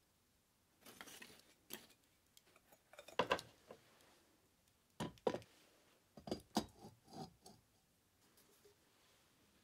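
Clinks and knocks of a kettle and an iron pan being set down on the iron trivets of a charcoal brazier, in several short clusters of sharp taps.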